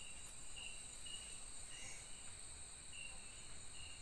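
Night-time forest insect chorus: a steady high-pitched drone with short chirps repeating about once or twice a second.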